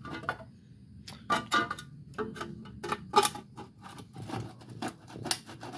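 Irregular metallic clicks and knocks, with a short ringing on some strikes: a thin tin can being worked and forced onto an exhaust pipe to serve as a baffle.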